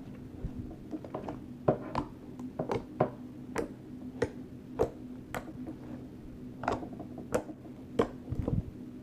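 Slime being mixed and squeezed, giving an irregular run of sharp sticky clicks and pops, about one or two a second, over a steady low hum.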